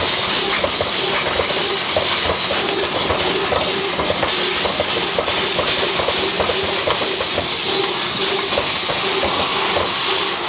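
TRUMPF CNC laser cutter cutting steel: a steady loud hiss of the assist gas jet at the cutting head, with a rapid, irregular ticking and crackling running through it.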